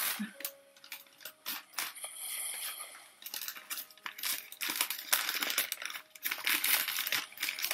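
Newspaper wrapping rustling and crinkling as it is pulled off a cactus cutting by hand, in irregular spells of crackling with short pauses between.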